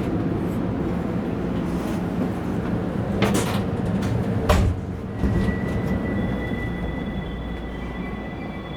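Running noise in the gangway between two cars of a Taiwan Railways local commuter train slowing into a station: a steady low rumble with two sharp knocks about three and four and a half seconds in. A thin steady high tone joins about six seconds in as the noise eases off.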